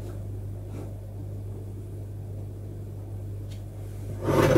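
Steady low electrical hum under quiet scraping of a spoon mixing dough in a plastic bowl, with a short loud noisy clatter near the end.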